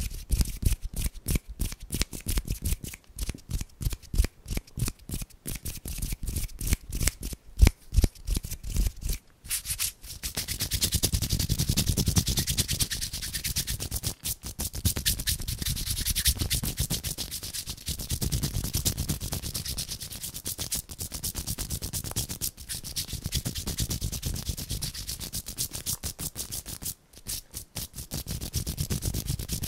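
Close-miked hand sounds. For the first nine seconds or so, fingers flick and pinch in a quick string of short, separate clicks and crackles. From about ten seconds in, palms rub together in a steady, dry rubbing that swells and eases in waves.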